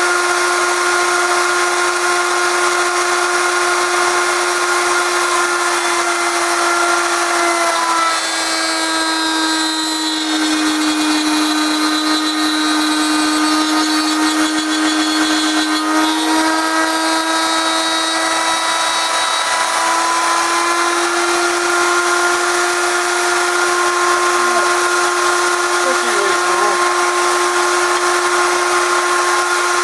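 Electric router in a homemade router table running with a steady high whine. About eight seconds in, its pitch sags for some ten seconds under the load of cutting the inlay recess in wood, then comes back up; the owner says the cutter from his cheap bit set isn't very sharp.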